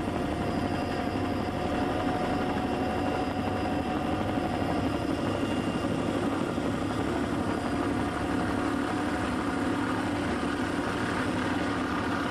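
Steady engine drone at a constant level and held pitch.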